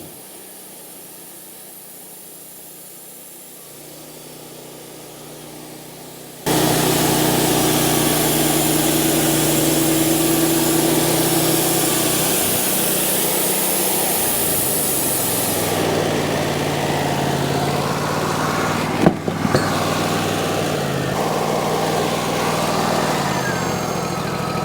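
Wood-Mizer LT40 portable band sawmill. For the first six seconds or so there is only a low, steady hum. Then it jumps suddenly to the engine running loud with the band blade sawing through a pine log, the engine pitch shifting a few times, with a single sharp knock about 19 seconds in.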